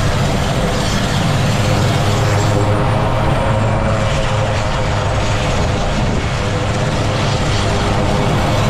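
RAF Puma twin-engine helicopter running, its turbines and rotor giving a loud, steady noise with no change in pitch or level.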